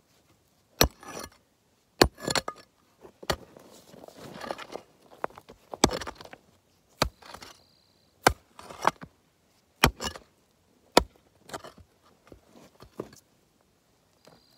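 Long-handled pick striking rocky ground about ten times, sharp hits a second or so apart, with dirt and loose stones scraping and rattling between the strikes as rocks are dug out.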